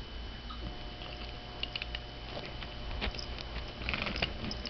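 Cocker spaniel chewing and mouthing a plush toy: soft chewing and small clicks of teeth on fabric, busiest about three to four seconds in.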